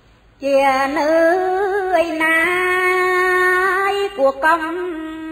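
A woman's solo voice chanting Khmer smot, Buddhist verse sung in long held notes with wavering ornaments. It begins about half a second in and breaks off briefly near the end before going on.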